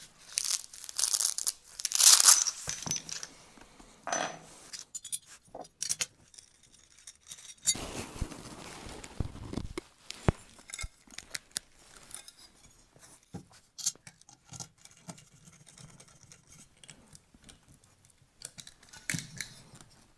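Bench handling noises: a ripping, rustling sound in the first few seconds as a green fabric screwdriver-bit roll is opened, a longer scraping rustle about eight seconds in, and scattered small clicks and knocks of aluminum chassis parts and a screwdriver being handled.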